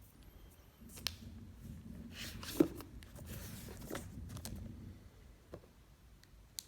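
Hands handling laptop packaging: light rustling and scattered clicks, the sharpest about two and a half seconds in.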